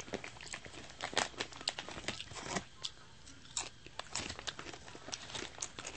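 A person chewing crunchy snack chips right at the microphone: irregular, crisp crunches, several a second.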